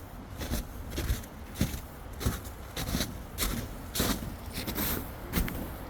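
Footsteps of a hiker walking at a steady pace, about two steps a second.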